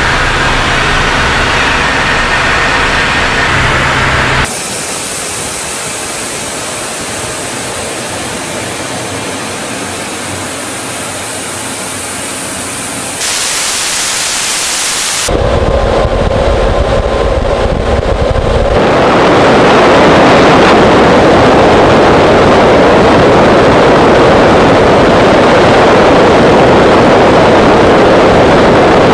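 Steady in-flight noise inside a strategic bomber, engines and rushing air, in several abrupt cuts between shots, with a low hum in the first few seconds. The noise is loudest over the last ten seconds, during the shots down the weapons bay.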